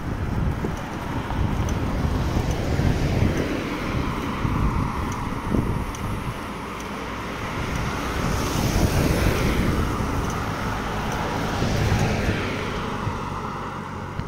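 Wind rumbling on the microphone of a camera riding along on a bicycle, with road traffic: cars drive past, swelling louder in the middle and again near the end.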